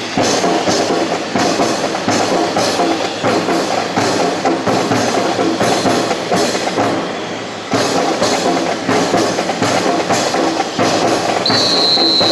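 Drill rifles handled by a drill team: sharp wooden clacks and slaps repeating about twice a second over a busy background. A steady high whistle-like tone starts near the end.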